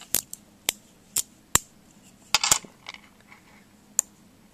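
Zen Magnets neodymium sphere magnets clicking sharply against each other as they are handled and snapped into place: single clicks about half a second apart, with a quick cluster of clicks about halfway.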